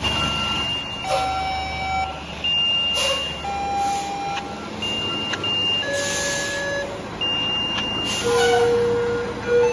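Fire department dispatch alerting tones: a sequence of steady tones, each held for about a second, stepping from one pitch to another with some overlapping, over a steady radio hiss.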